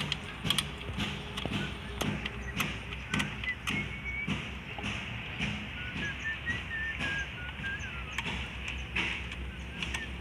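A steel spanner clinking and tapping on the nuts and fittings of a diesel fuel injection pump's injector lines as they are worked loose, a string of irregular sharp metal clicks over a low steady hum.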